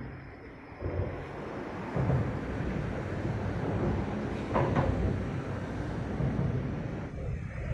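Road traffic crossing a bridge overhead: a low, steady rumble that builds about a second in and grows louder about two seconds in, with a brief higher-pitched streak near the middle.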